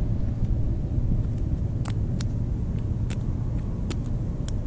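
Wind buffeting the microphone as a steady low rumble, with about five short, sharp clicks from about two seconds in.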